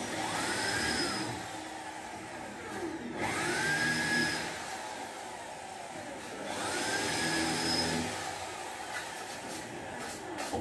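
Corded electric drill run overhead into a ceiling board, three times: each time its motor whines up to speed, holds for a couple of seconds while the bit cuts, then winds down.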